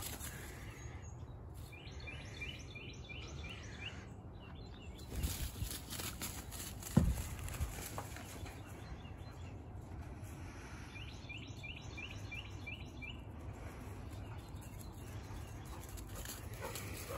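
Outdoor ambience with a steady low rumble. A songbird sings a quick run of about seven repeated high notes twice, about two seconds in and again about eleven seconds in. A few knocks and rustles lead up to a single sharp thump about seven seconds in.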